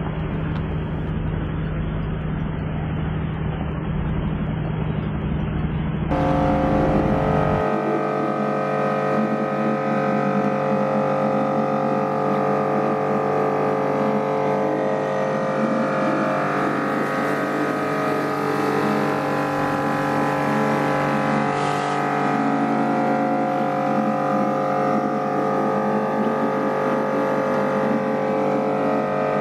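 Kärcher K5 electric pressure washer running, its motor and pump giving a steady hum with several held tones. The sound is duller for the first few seconds, then becomes fuller and brighter about six seconds in.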